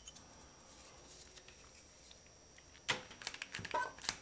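Low room tone for about three seconds, then a quick run of clicks and short squeaks as a hand-held brake bleeding tool is worked to suck excess oil out of a motorcycle fork tube.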